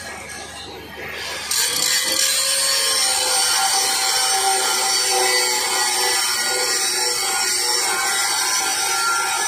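Handheld angle grinder spinning up about a second in, then grinding steadily against stainless steel pipe, metal on abrasive disc, throwing sparks.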